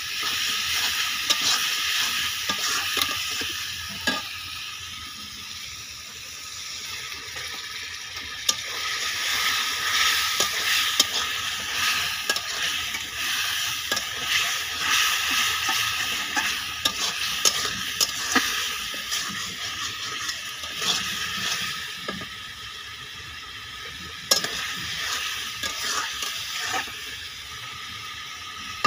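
Onion-and-spice masala with potato pieces sizzling in a metal kadai while it is fried down. A metal ladle stirs and scrapes the pan, with frequent clicks of metal on metal.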